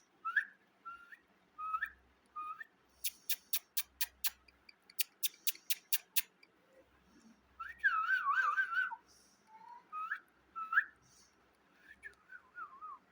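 Parrot whistling: short rising chirps, then two quick runs of sharp clicks, a longer warbling whistle about eight seconds in, and a few more chirps ending in a falling warble.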